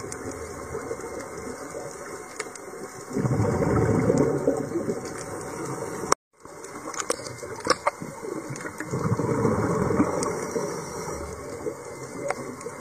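Scuba diver breathing through a regulator underwater: rushing bursts of exhaled bubbles over a steady watery hiss, with scattered small clicks. The sound cuts out briefly about six seconds in.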